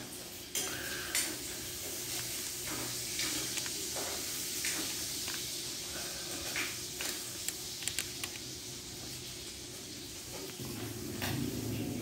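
Small clicks and scrapes of a screwdriver working on the gear and bearing of an opened electric drill, over a steady background hiss.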